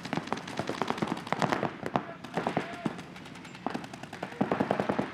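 Several paintball markers firing rapidly, many shots a second in overlapping strings, easing off for a moment about three seconds in before picking up again.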